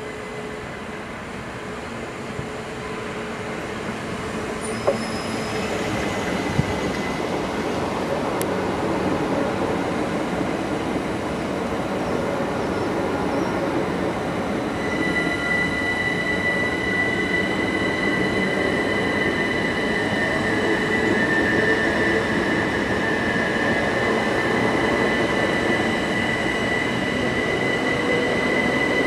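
Electric multiple-unit passenger train approaching and passing, its wheel-and-rail noise growing steadily louder, with a couple of sharp clicks about five seconds in. From about halfway a steady high whine joins in as the carriages run by.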